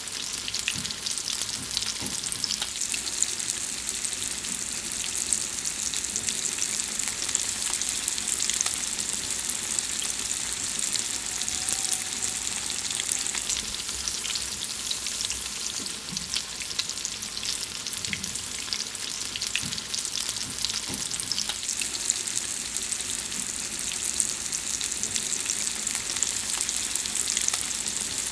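Food frying in a hot pan: a steady, even sizzle with dense, fast crackling pops.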